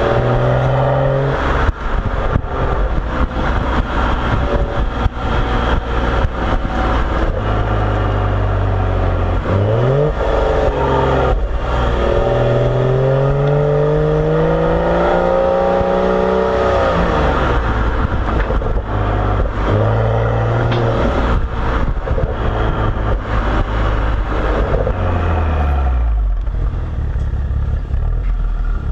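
BMW 335xi's turbocharged inline-six through a Corsa axle-back exhaust, driving under load. The engine note rises and falls several times as the car accelerates, shifts and lifts off, over frequent short knocks.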